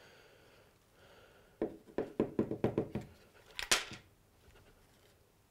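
Coins knocking and rattling out of a washing machine drain pump housing onto a worktop: a quick run of knocks, then a sharp clink a little after halfway. The two 5p coins had lodged in the pump, enough to stop it working.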